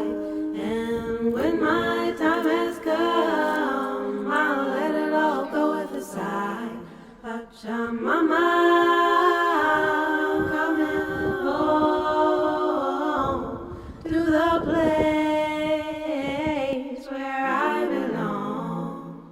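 Background music: an a cappella vocal song, several voices in harmony holding long notes, fading out at the end.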